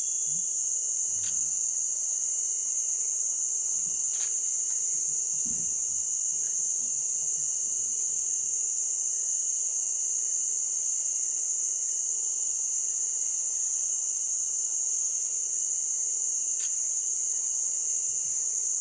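Dense, steady high-pitched chorus of insects droning without a break, with a few faint clicks.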